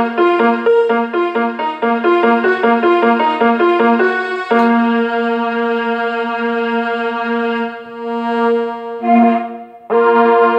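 Instrumental music: quick repeated keyboard-like notes give way, about four and a half seconds in, to a long held chord, which dips, swells briefly and is struck again near the end.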